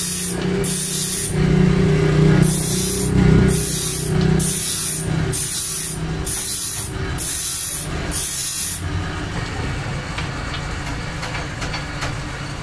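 A gloved hand rubs black finish along a wooden cue stick in about nine quick hissing strokes, roughly one every 0.8 seconds, which stop about nine seconds in. A workshop machine hums steadily underneath.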